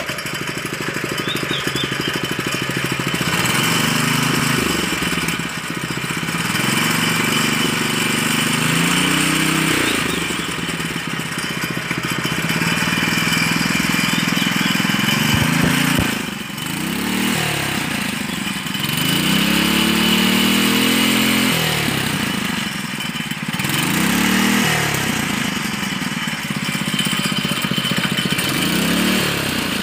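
Honda GX200 single-cylinder four-stroke engine on a long-tail (ketinting) boat-motor bracket, running out of the water with its propeller spinning in air. It is revved up and down again and again, with quicker swells about every two seconds in the second half.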